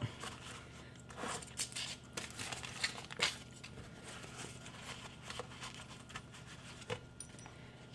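Paper towels rustling and crinkling as they are laid over soft cheese in a plastic container and pressed down by hand, in short scattered rustles that are busiest in the first few seconds and then thin out.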